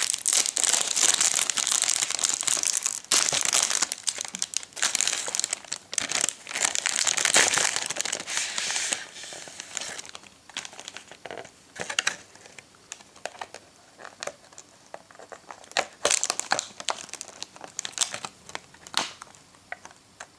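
Thin clear plastic wrapping crinkled by hand as it is pulled off a candy package. It is dense and continuous for about the first nine seconds, then gives way to scattered crackles and clicks of plastic.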